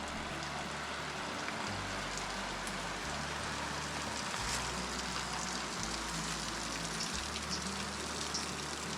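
Spring water running inside a cave and flowing out toward a creek: a steady rush of water.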